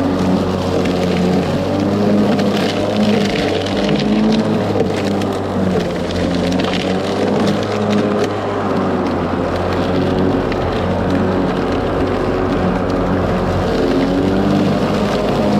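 Ryobi 40V brushless electric lawn mower running under load, its motor and blade giving a steady whirring hum that wavers slightly in pitch, with scattered sharp ticks over the top.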